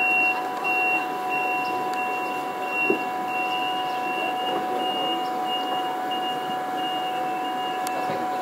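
Siemens Desiro diesel railcar moving slowly out of the station, its drive giving a steady multi-tone whine. A high electronic beep pulses on and off for the first few seconds and then holds steadier. A single sharp knock comes about three seconds in.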